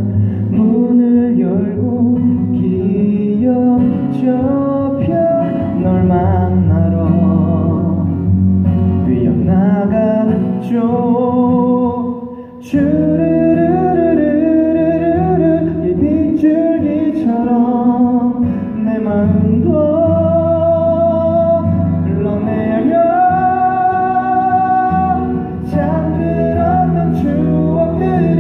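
A voice singing a slow song over acoustic guitar accompaniment, with a brief break about twelve seconds in.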